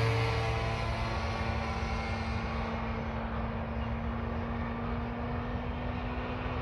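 OS GT33 gas engine of an RC Yak 54 aerobatic plane droning in flight with its propeller, growing fainter and duller over the first few seconds as the plane moves away, then holding steady.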